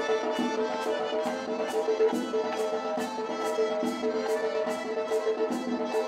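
Lively Circassian folk dance music, accordion-led with a sustained melody, over a sharp, steady beat of about three strokes a second.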